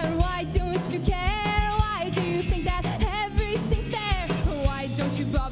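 A live rock band playing, with a woman singing held, wavering notes over electric guitar, bass and a steady drum beat.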